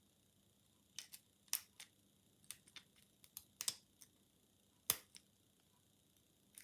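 A pick and tension tool working the pins of a Sterling rim cylinder lock: a scattered string of small, sharp metal clicks, the loudest about five seconds in.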